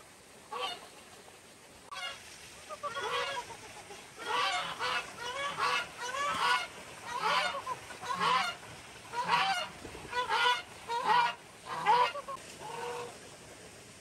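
Geese honking: a string of repeated honks, roughly one a second, starting a couple of seconds in and tailing off near the end.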